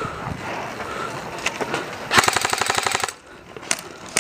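Airsoft electric gun firing one rapid full-auto burst of just under a second, about two seconds in. A couple of single sharp clicks come near the end.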